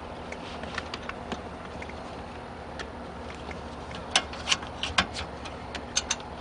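Light plastic clicks and knocks of interior trim and upholstery pieces being handled and pressed into place on a pickup's rear cab wall. They are sparse at first, with a run of sharper clicks about four to five seconds in and two more near the end.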